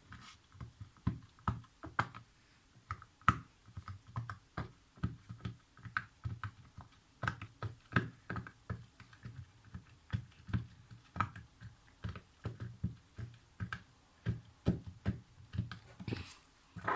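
Silicone pop-it fidget toy bubbles being pressed one after another, each giving a short popping click with a soft thud, about two or three pops a second at an uneven pace.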